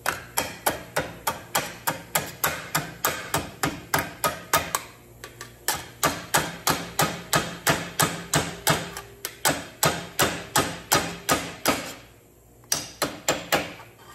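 Hammer blows on a sheet-steel flange held against a vise, about three strikes a second, with a short lull about five seconds in and a brief pause near the end. The vise serves as the dolly while the bent edge is hammered down to shape.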